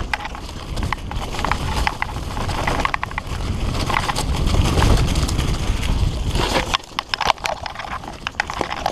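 A fully rigid singlespeed mountain bike (Redline Monocog) rattling and clicking over a rough forest trail on a fast descent, with heavy wind rumble on the helmet-camera microphone. The rumble drops away about two-thirds of the way through, leaving the bike's sharp rattles and clicks.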